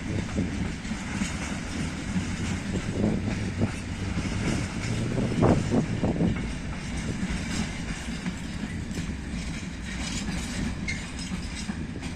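A train rolling past with a steady low rumble and a few clacks of wheels over the rails.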